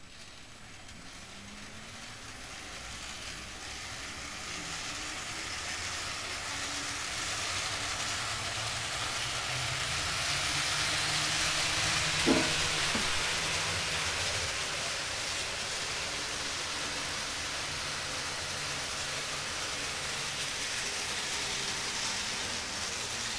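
Model train running on layout track: a steady rolling rush with a low motor hum that grows louder over the first ten seconds as the train comes closer, then holds. A brief squeal about halfway through.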